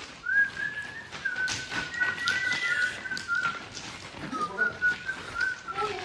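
A person whistling a tune: a thin, slightly wavering note held in two long phrases, with a brief higher second note around the middle. Scattered footstep clicks sound underneath.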